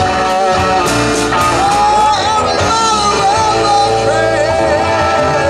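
Live rock band playing electric guitars, bass and drums, with a singer's voice over the band.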